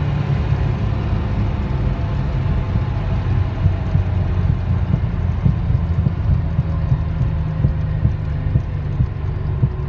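Maserati BiTurbo twin-turbo V6 and its new Powerflow rear silencers at a steady cruise, heard from inside the cabin: a steady low drone with a slight pulse.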